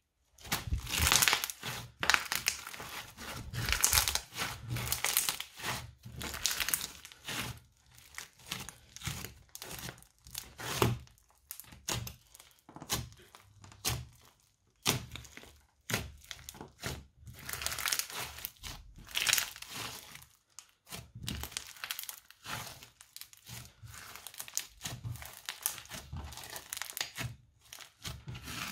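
Bead-filled crunchy slime being pressed and kneaded by hand, crackling and clicking in irregular bursts with short pauses between squeezes.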